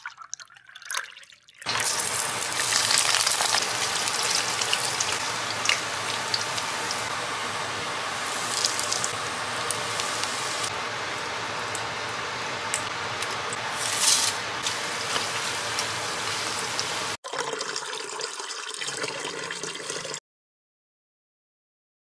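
Hot oil sizzling steadily in a wok as hot-pot soup base is fried in it. The sizzle cuts off suddenly about 17 seconds in, and a few seconds of quieter cooking noise follow before silence.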